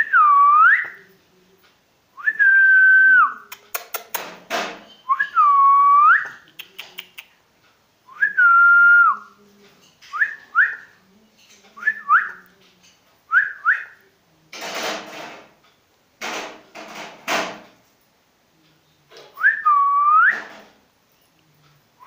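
A man whistling to a pet ringneck parakeet: a string of short whistled calls, some swooping down and back up, others held on one note and then dropping at the end. A few short harsh noises break in around the middle.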